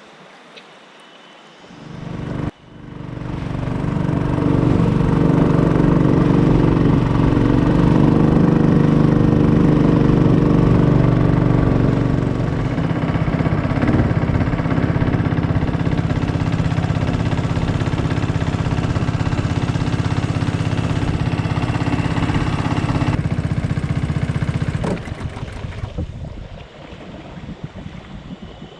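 Small boat's motor running steadily at close range. It starts about two seconds in, holds a steady pitch, and dies away a few seconds before the end.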